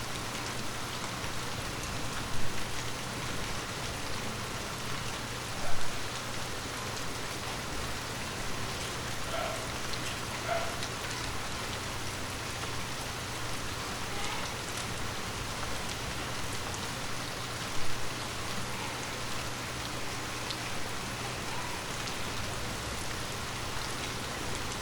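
Light rain falling steadily, briefly louder three times, about two and a half, six and eighteen seconds in. A faint steady low hum sits underneath.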